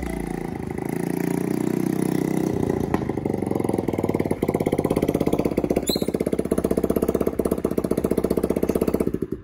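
Small motor scooter engine running with a fast, even pulsing beat, then cutting off suddenly near the end.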